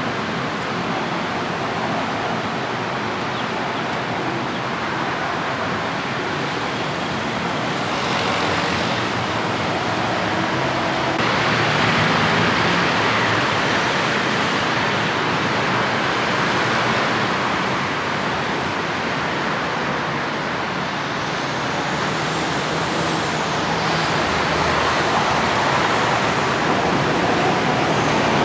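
Steady road traffic noise from a busy city street, getting somewhat louder about eleven seconds in.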